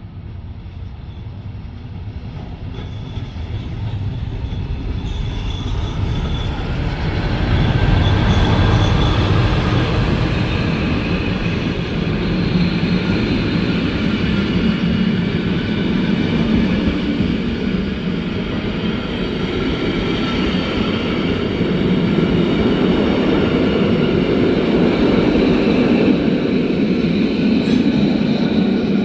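Ae 4/7 electric locomotive pulling away with a rake of passenger coaches: wheels rumbling on the rails, growing louder over the first eight seconds or so and staying loud as the coaches roll close past, with thin high wheel squeal above.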